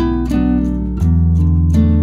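Background music with a steady beat; the bass moves to a lower, louder note about a second in.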